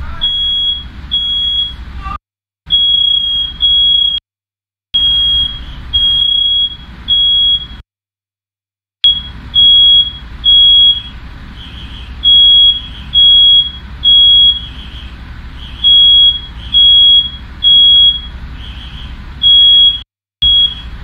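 Smoke alarm sounding, high beeps in groups of three with a short pause between groups, set off by firework smoke filling the room. The sound cuts out completely a few times.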